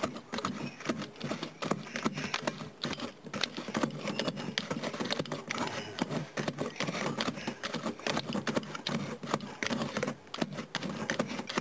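The bottom of a black cup pounding wet chile salsa in a plastic tub: rapid, irregular tapping, several knocks a second.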